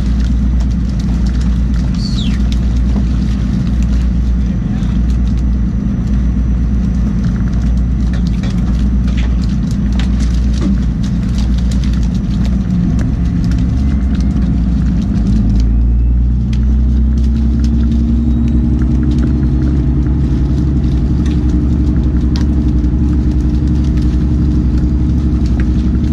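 Boat motor running steadily underway, its note changing and settling into a steadier hum about sixteen seconds in, with scattered knocks and slaps of fish being handled on the skiff's deck.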